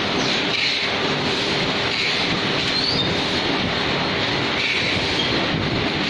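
Paper plate production line machinery running steadily: a dense mechanical clatter from the conveyors and machine, with brief high squeaks every few seconds.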